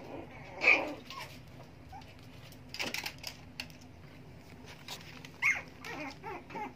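Puppies yelping and whimpering, with a sharp high yelp about a second in and more short cries near the end.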